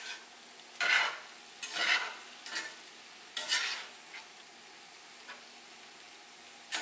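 Ground bison, broccoli and onion sizzling in a cast iron skillet while a slotted spatula stirs and scrapes through them. There are several quick strokes in the first four seconds or so, then a steady sizzle, and one more stroke at the end.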